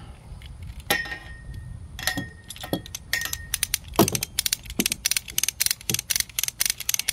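Come-along cable winch ratchet being worked: a few metallic clanks with a short ring, then a rapid, even run of ratchet clicks starting about three and a half seconds in.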